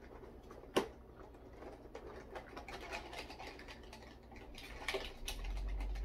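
Plastic tackle box being handled and opened: a sharp click about a second in, light ticks and taps of the lid and small parts inside, and a cluster of clicks near the end. A low rumble comes in near the end.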